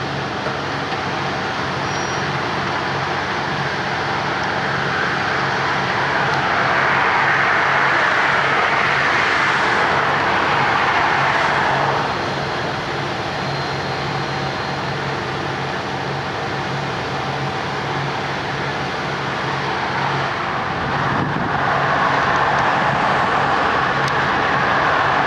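Diesel engines of asphalt paving machinery running steadily with a low hum. A broader rushing noise swells about six seconds in, cuts back near twelve seconds, and rises again from about twenty-one seconds.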